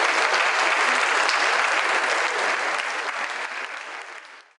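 Audience applauding, steady at first and fading over the last second before cutting off.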